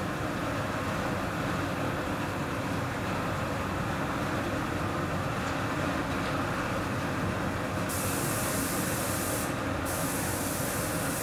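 Steady machinery hum from a running paint-spraying rig. About eight seconds in, an air spray gun starts hissing as it is triggered, breaks off briefly, then hisses again.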